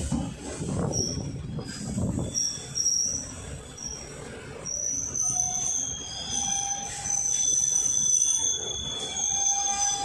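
DEMU train wheels rolling on the track, heard from inside the coach: a low rumble at first, then high-pitched wheel squeal in short chirps that become a long, steady squeal from about halfway through.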